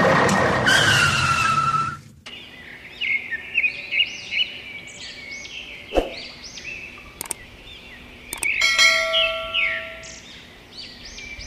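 Birds chirping, many short repeated chirps, after a loud rushing noise with a falling whistle that cuts off sharply about two seconds in. A sharp click comes about six seconds in, and a brief ringing tone about nine seconds in.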